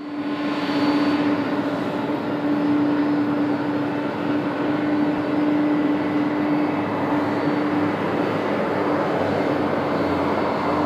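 Boeing 777-200 twin-jet airliner's engines running with a steady hum and one steady tone. The sound fades in over the first second, and a lower hum joins about seven seconds in.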